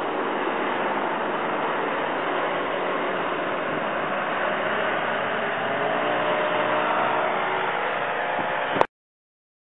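A hovercraft's engine and fan running steadily, a dense noise with a faint engine tone that rises slightly a couple of seconds before the end. The sound cuts off abruptly almost nine seconds in.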